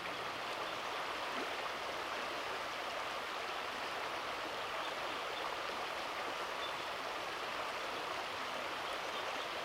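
Flowing water of a bush stream, a steady even rush.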